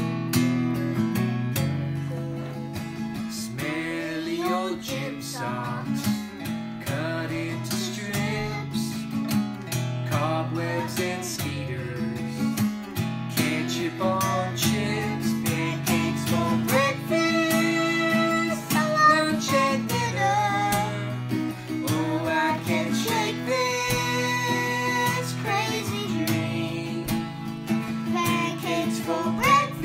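Music: a song with strummed acoustic guitar and a singing voice.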